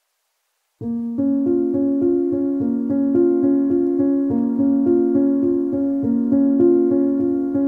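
Silence, then background music starts suddenly about a second in: a melody of held keyboard-like notes over a steady pulse.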